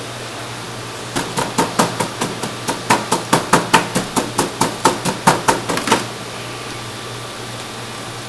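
Cleaver chopping rapidly into raw chicken thigh on a foil-lined steel tray: about two dozen quick strikes, roughly five a second, starting about a second in and stopping about six seconds in, over a steady hum.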